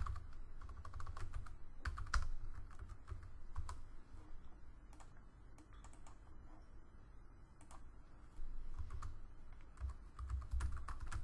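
Typing on a computer keyboard: clusters of keystroke clicks in the first few seconds and again near the end, with only a few scattered clicks in between.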